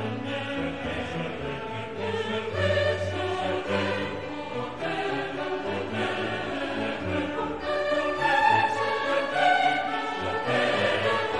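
Background music with choral singing in long held notes.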